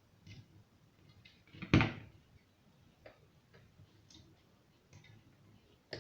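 Scattered light clicks and taps, with one much louder knock about two seconds in.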